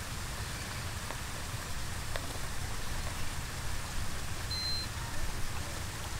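Steady rushing-water hiss with a fluttering low wind rumble on the microphone, a few faint clicks, and one short high beep about four and a half seconds in.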